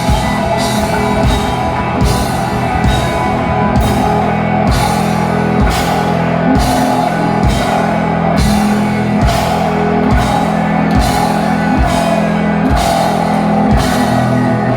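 Rock band playing live: distorted electric guitars and a drum kit with a steady beat and regular cymbal crashes, with some singing.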